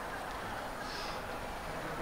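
Quiet outdoor background hum with distant, indistinct voices and a brief faint high-pitched sound about halfway through; nothing close or loud stands out.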